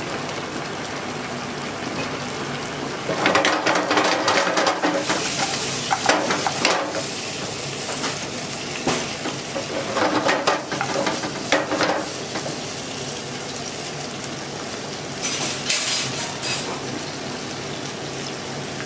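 A pan of coq au vin sauce simmering and sizzling on the stove, with several louder stretches of stirring and scraping in the pan.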